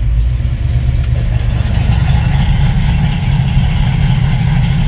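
1969 Pontiac GTO's 467-cubic-inch Pontiac V8 idling steadily. About a second in, the electric exhaust cutouts open and the exhaust changes from a muffled note to the raw, unmuffled rumble.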